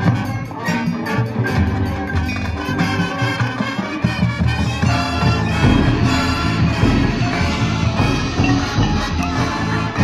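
A high school marching band playing its field show: brass over front-ensemble and drum-line percussion, with steady rhythmic hits for the first few seconds.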